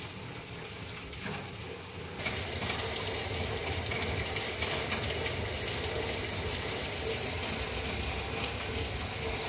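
Steady rain falling and splashing, an even hiss that gets louder about two seconds in and then holds.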